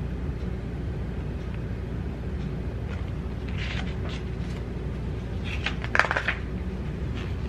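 Pages of a glossy CD photo booklet being handled and turned: a soft paper rustle about halfway through and a sharper rustle with a click near the end, over a steady low hum.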